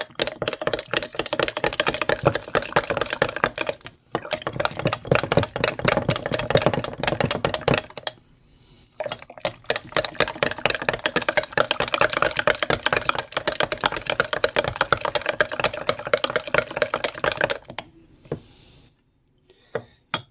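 A metal utensil stirring fast in a tall drinking glass, clinking rapidly against the glass as flour is mixed into milk for a gravy thickener. It goes in three runs with short pauses and stops a couple of seconds before the end.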